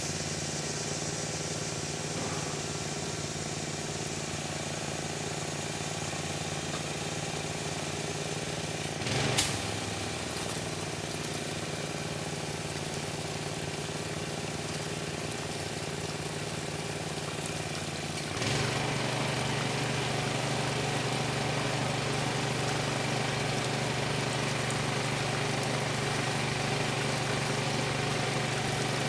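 Gas engine of a pressure washer running steadily. A brief sharp noise comes about nine seconds in. Past the middle the sound steps up louder, with a lower engine note and more hiss.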